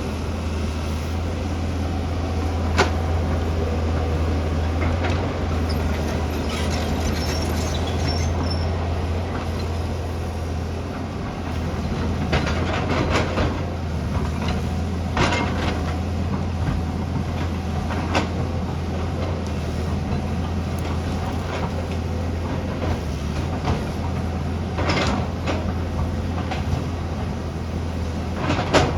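Tata Hitachi excavator's diesel engine running with a steady low drone while it works, with scattered sharp clanks and knocks from the machine.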